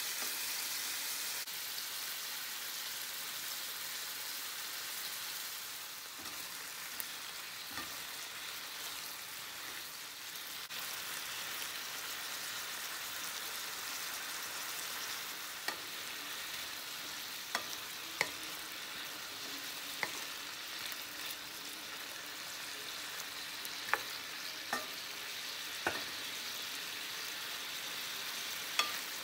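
Jumbo shrimp sizzling as they sauté in oil in a frying pan: a steady high hiss, with scattered sharp clicks from about halfway through.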